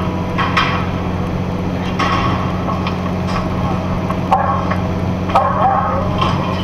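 Steady low drone of a box truck's engine and tyres heard from inside the cab at highway speed, with brief muffled sounds coming and going over it.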